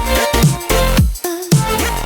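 Electronic pop music with a heavy beat and deep bass, the beat briefly dropping out halfway through.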